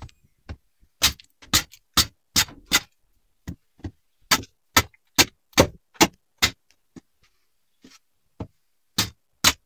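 Hand-milking: squirts of milk hitting a container in a steady rhythm of about two to three a second, with two short pauses.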